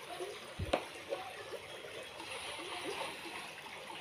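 Faint outdoor ambience: a steady rushing noise like running water, with a single soft knock under a second in and a few faint short sounds scattered through it.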